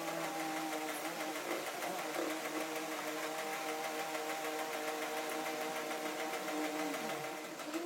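A small electric motor running steadily at one pitch for several seconds, then slowing down near the end.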